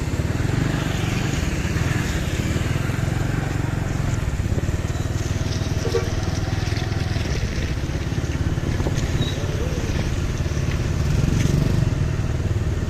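Large diesel bus engine idling with a steady low rumble.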